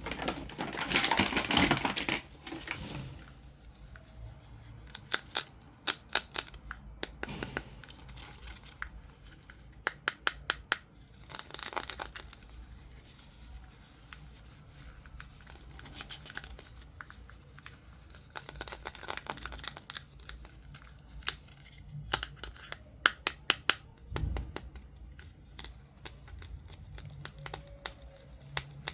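Doll packaging being opened by hand: paper and plastic tearing and crinkling, loudest about one to three seconds in. Clusters of quick sharp clicks and snips follow through the rest.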